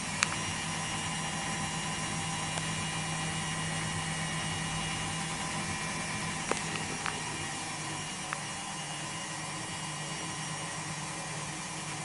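Ariston front-loading washing machine running its drum on a spin with an unbalanced load: a steady motor hum and whir, with a few short clicks, the sharpest just after the start.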